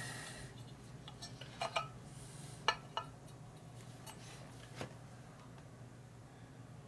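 A few scattered metallic clinks and taps of tools and parts being handled during bench work, about five in all, over a faint steady low hum.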